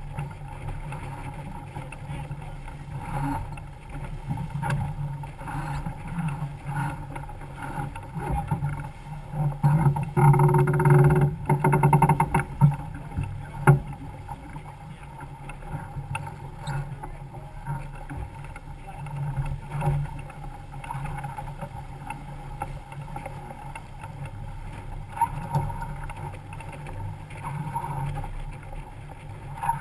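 Water rushing and splashing along the hull of a heeled sailboat under sail, steady with a louder surge about ten to thirteen seconds in.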